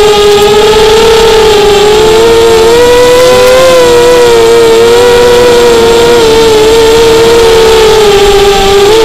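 Eachine Racer 250 quadcopter's brushless motors and propellers whining loudly, heard from the drone's onboard camera. The pitch holds fairly steady, drifting up and wavering slightly as it flies low.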